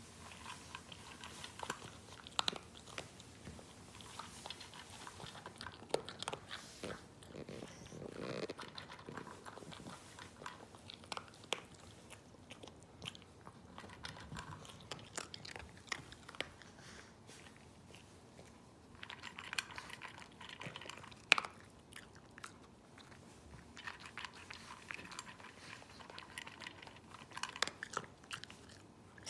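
A Pekingese crunching and chewing dry kibble from a stainless steel bowl: irregular crisp crunches in clusters, with one sharper click a little past two-thirds of the way through.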